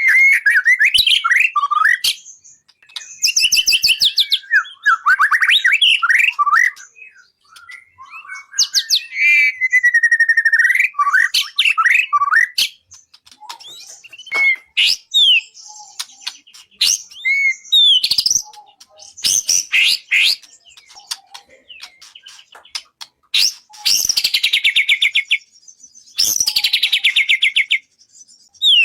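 Loud, varied songbird song: whistled and sliding notes and fast trills in phrases broken by short pauses, with two long, fast chattering rattles near the end. It is masteran tutor song of the kind played to train caged murai songbirds.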